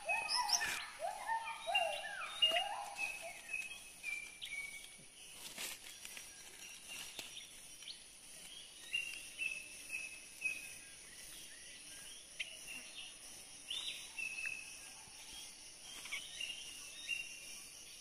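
Birds calling: a run of short downward-sliding chirps, busy and lower-pitched for the first few seconds, then sparser, higher notes. A steady high insect drone runs underneath.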